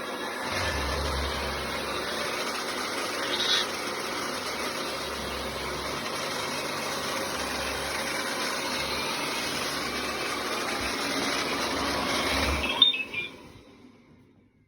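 Steady machine-like whirring with a low hum underneath, which cuts off with a sharp click near the end and fades out.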